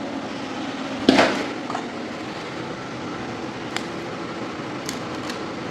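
Tools being handled during a blade change: one sharp knock about a second in, then a few light clicks, over a steady hiss of background noise.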